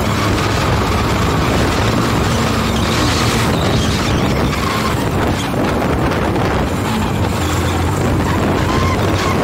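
Engine of the vehicle carrying the camera, running at a steady drone as it drives along the street, with road and wind noise over it.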